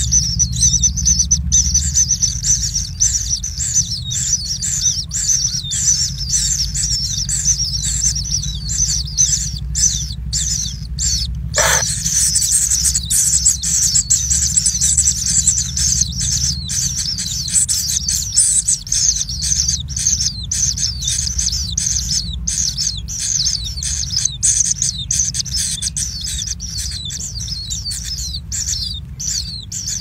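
Kingfisher nestlings giving a dense, continuous chorus of high, rapid chirping begging calls over a low steady hum.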